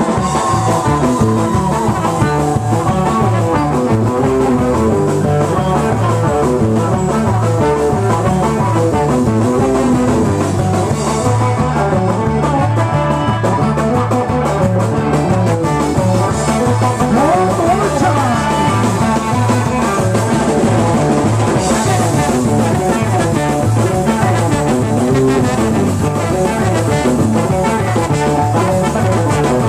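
A Celtic rock band playing live: a fast, steady tune with guitar and drum kit.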